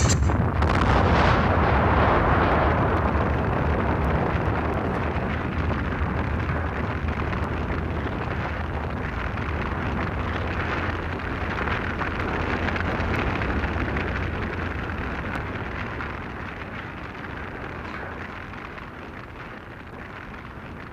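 Vehicle explosion: a sharp blast right at the start and a second burst about a second later, then a long rumble of the fireball burning that slowly fades away.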